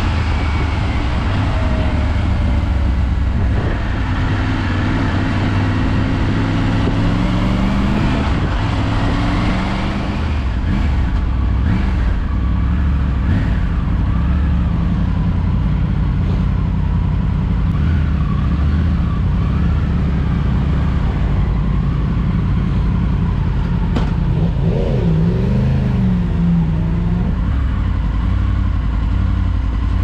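Triumph Tiger 900 Rally's three-cylinder engine heard from the rider's helmet, changing pitch through the gears as the bike slows from road speed to a stop, then idling. Wind noise rumbles on the microphone while the bike is moving.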